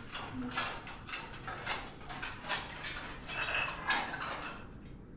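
Dishes and cutlery clattering as they are handled at a kitchen sink: a string of knocks, clinks and scrapes, with one ringing clink about three and a half seconds in.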